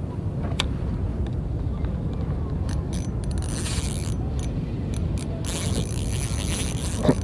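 Ultralight spinning reel being cranked to wind in the line, its gears whirring in two spells of about a second, starting about three seconds in and again about five and a half seconds in, with a few light clicks. Steady wind rumble on the microphone underneath.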